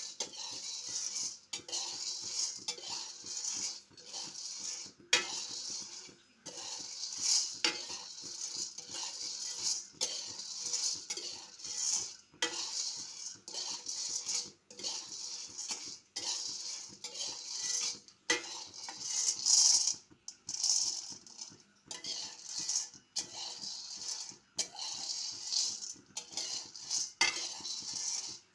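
A slotted metal spatula stirs and scrapes raw green coffee beans around a steel wok, the beans rattling and sliding against the metal in repeated, irregular strokes over a steady hiss. The beans are still green, early in a manual pan roast.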